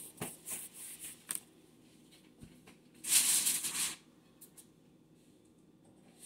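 Kitchen handling sounds: light rustles and clicks in the first second and a half, then a louder, hissy rustle lasting about a second, three seconds in, like crinkly paper or wrapping being handled.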